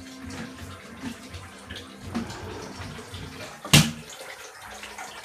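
Water sloshing and trickling in a small tiled shower room, with one sharp knock about three-quarters of the way through.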